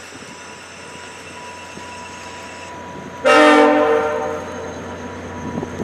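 VIA Rail F40PH diesel locomotive's air horn sounding one blast of about a second and a half, a chord of several notes held together. It comes in suddenly about three seconds in, over the locomotive's low steady rumble, which grows rougher and louder near the end.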